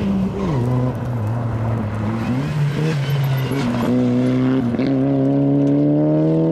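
Rally car engine on a gravel stage. Its revs drop sharply as it goes into the corner, then blip and waver through the slide, and climb steadily as it pulls away, over the hiss of tyres on loose gravel.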